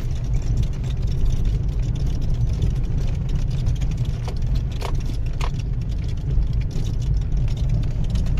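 Cabin noise inside a moving Mahindra XUV300: a steady low road and engine rumble with a few sharp clicks and rattles from the dashboard, the clearest about five seconds in. The noise comes from the dashboard's torn foam packing between the chassis clips and the dash, a known manufacturing defect of the BS4 XUV300.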